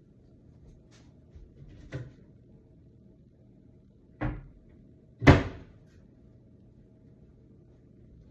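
Several separate knocks and thumps, the loudest about five seconds in, over a low steady hum.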